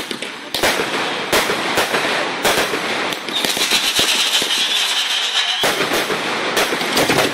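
Fireworks going off: a rapid string of sharp bangs and crackling, with a steady hiss from about three seconds in, lasting a couple of seconds.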